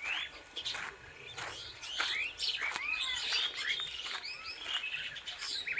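Several birds calling and chirping together, with quick sweeping chirps overlapping throughout and busiest in the middle, and a few short sharp clicks.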